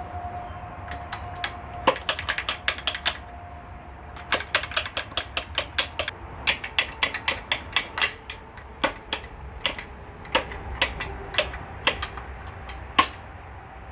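Metal hand tools clicking and knocking in quick, irregular clusters against a stuck crankshaft timing gear on a Honda B20 engine block, with one sharper knock near the end.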